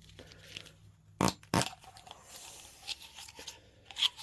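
A tool being handled in the hands: two sharp clicks about a second in, then a stretch of rubbing and rustling, and another click near the end.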